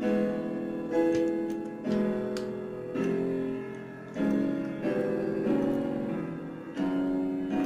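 Background piano music: chords struck about once a second, each ringing and fading before the next.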